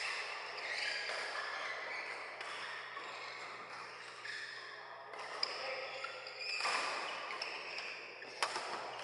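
Badminton rally: a few sharp hits of racket strings on the shuttlecock, the loudest near the end, over a background of voices chattering.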